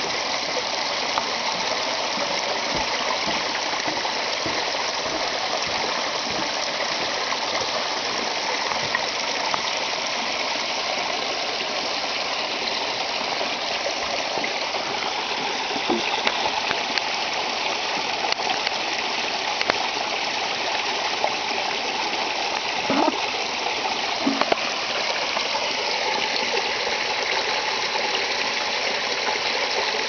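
Tiny waterfalls spilling and splashing down over rock ledges: a steady rush of falling water, with a few sharper splashes standing out about halfway through.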